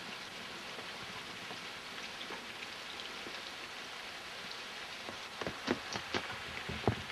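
Steady rain falling, an even hiss of drops, with a handful of sharper, louder taps in the last two seconds, the loudest just before the end.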